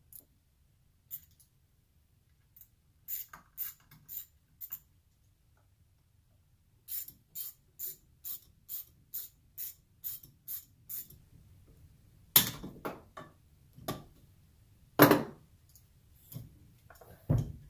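Ratchet wrench clicking on a stubborn bolt at the motor end of a vacuum pump: a few scattered clicks, then a steady run of about two or three clicks a second, followed by several louder knocks.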